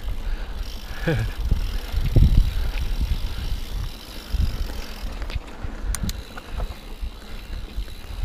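Mountain bike rolling fast along dirt singletrack: a steady low rumble of tyres and wind on the microphone, with a few sharp clicks and rattles between about five and six seconds in.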